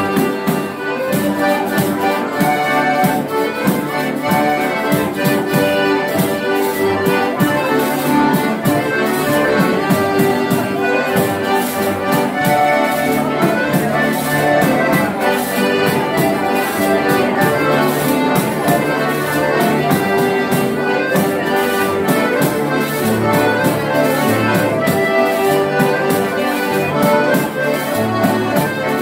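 A small live band of accordions playing a dance tune together, steady and continuous.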